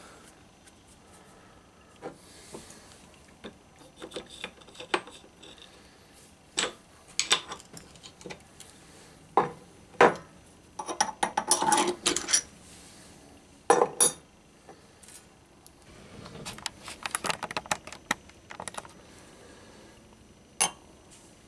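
Small steel machined parts and tools clinking and clattering as they are handled and set down on metal: scattered sharp clicks and knocks, with a few short bursts of clatter.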